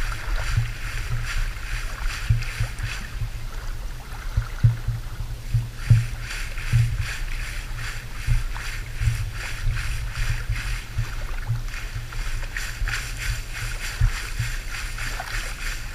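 Shallow seawater sloshing and splashing as someone wades and drags a mesh net bag through it, with irregular low thumps throughout.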